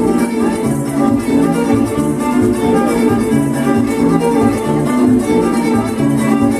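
Instrumental dance music with plucked and bowed strings, guitar and violin, over a steady pulse of low notes.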